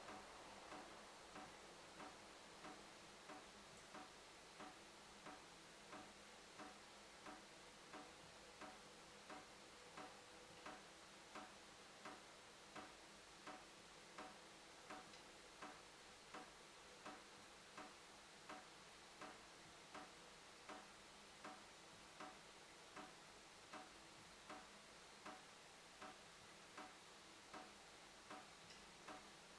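A dripping tap: water drops falling at a steady, even pace, about four drops every three seconds, each a short, quiet drip.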